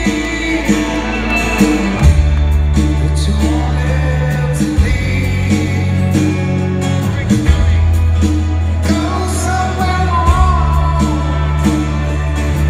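A live rock band playing a slow song in an arena: a male lead voice sings over deep held bass chords that change about every three seconds.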